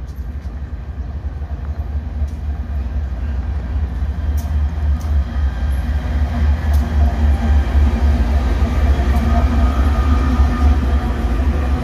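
Two MRS diesel-electric freight locomotives approaching and passing close by, with a deep engine rumble that grows steadily louder. A steady engine hum joins in about halfway through as the locomotives come alongside.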